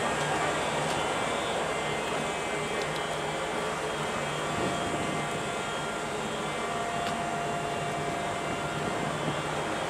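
Steady drone of a moored warship's machinery and ventilation fans, heard on deck: an even rush of air with several steady hum tones. A thin, higher steady tone joins about five seconds in and stops about nine seconds in.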